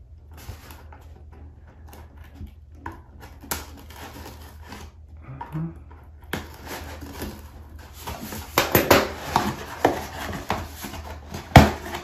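Small metal scissors cutting the sticker seal on a cardboard box, then hands rubbing and handling the cardboard, with scattered clicks and scrapes. The handling grows louder in the second half, and a sharp knock near the end is the loudest sound.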